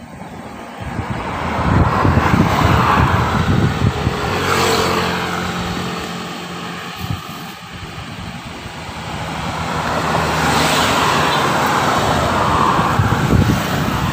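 Road traffic passing, the noise swelling twice with an engine hum between, mixed with wind rumbling on the microphone.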